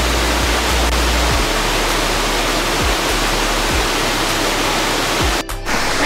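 Waterfall rushing over rock ledges: a loud, steady wash of water, with a low rumble underneath that shifts in level. The sound drops out for a moment near the end.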